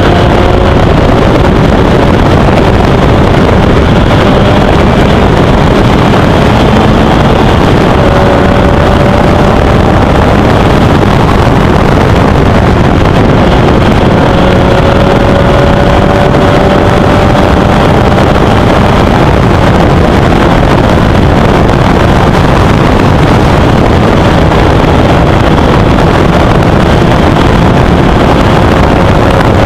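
Formel Easter single-seater racing car at speed. Its engine note climbs slowly in pitch several times and drops back between climbs, under heavy wind noise on the microphone. The sound is very loud and flat throughout.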